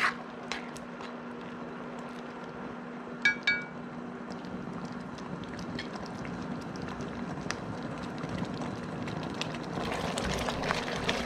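Tomato-vegetable sauce simmering in a pot, with a metal spoon clinking against the pot at the start and two ringing taps about three seconds in. Near the end the bubbling and stirring get louder.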